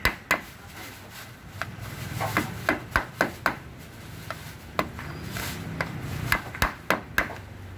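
Sharp, irregular metallic clicks and taps from a long screwdriver turning and knocking against the bolts in a car's roof-rail channel, several bunched together about two to three seconds in and again near the end.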